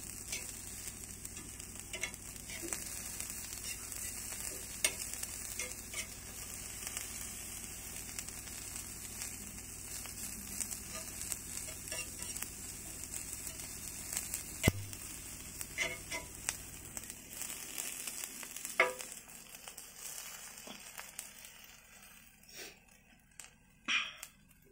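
Small whole prawns frying in oil in a black pan: a steady sizzle, with the scrapes and taps of a metal spatula stirring them. The sizzle dies down over the last several seconds.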